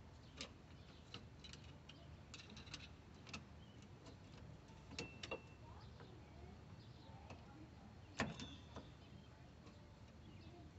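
Faint scattered clicks and taps of hand tools and metal parts being handled during brake work on a car, the loudest a sharp click about eight seconds in, over a low steady hum.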